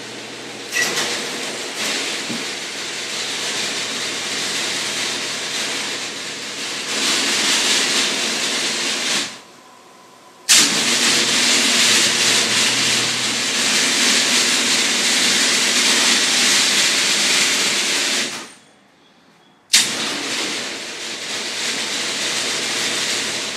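Triton oscillating spindle and belt sander running with nothing being sanded: a steady motor hum with a strong hiss. It is switched off about nine seconds in and back on a second or so later, then off and on again near the end.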